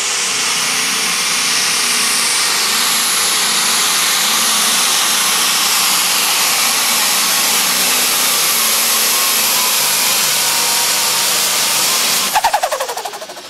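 Turbocharged diesel engine of a super/pro stock pulling tractor running at full throttle under load while pulling the sled: loud and steady, with a high whine on top. About twelve seconds in the throttle is shut off, giving a quick run of pops, and the engine winds down with falling pitch.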